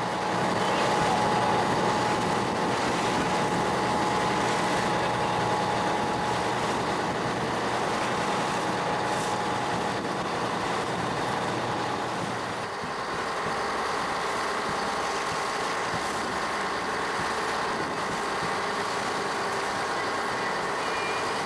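Fishing boat's engine running steadily under way, a constant drone with held tones, with water rushing and splashing along the hull.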